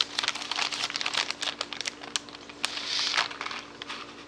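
Plastic bag of shredded lettuce crinkling and rustling as hands dig into it, a quick run of small crackles with a longer rustle about three seconds in.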